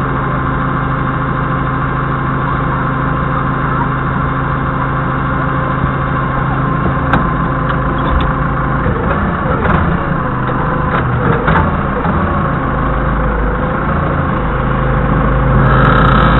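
Doosan 4.5-ton forklift engine idling steadily, with a few light clicks and knocks around the middle. The engine gets louder near the end.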